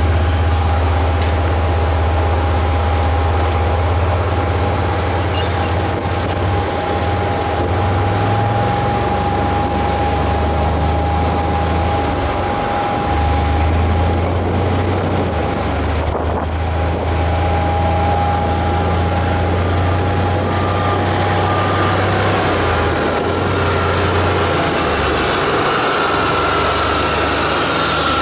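Steady loud drone of engines and machinery on an airport ramp around a parked airliner: a low rumble that rises and falls in level now and then, with a steady high-pitched whine running through it.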